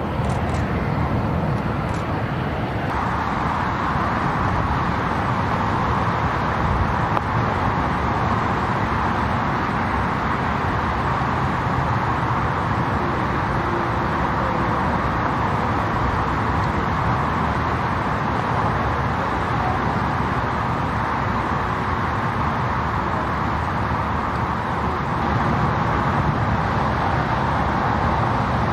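Airliner jet engines running with a steady loud rush and low rumble, growing stronger about three seconds in and a little louder again near the end.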